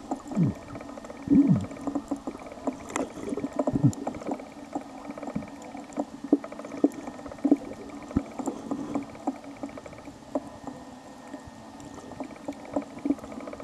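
Underwater sound picked up by a camera submerged on a reef: a muffled steady hum of moving water with many scattered clicks and knocks, and a few low falling whooshes in the first few seconds.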